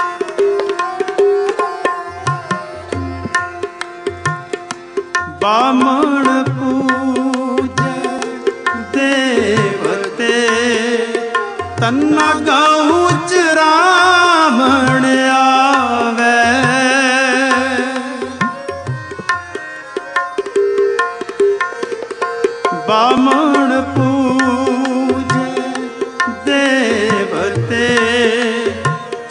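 Devotional kirtan music: a harmonium holds steady chords over a tabla playing a regular beat. About five seconds in, a singing voice joins with gliding, wavering melodic lines, and the tabla keeps time beneath it.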